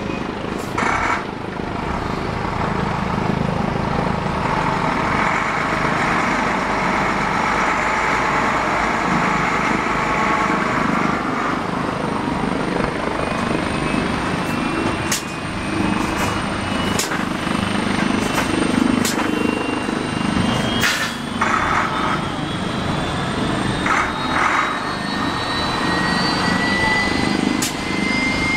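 Helicopter hovering low and setting down: steady rotor and turbine noise. A whine rising slowly in pitch joins in about halfway through, and there are several sharp clicks.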